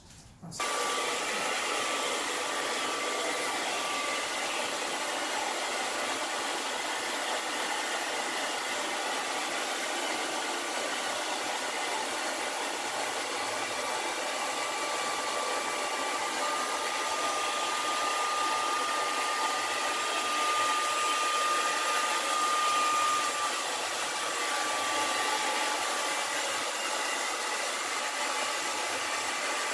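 Handheld heat gun switched on about half a second in and blowing steadily, a rushing air noise with a faint whine that grows stronger for a few seconds in the middle.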